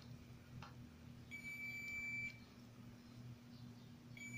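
Multimeter continuity beeper giving a steady high beep of about a second, twice, the second starting near the end, as the test probes bridge a MOSFET's drain and source: the beep is the sign of a short, a shorted MOSFET. A short click comes between them.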